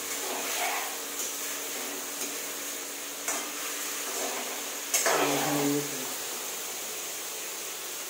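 Paneer cubes sizzling in hot oil in a frying pan while a spatula scrapes and clinks against the pan, lifting the fried pieces out. A few light clinks, with a louder knock against the pan about five seconds in.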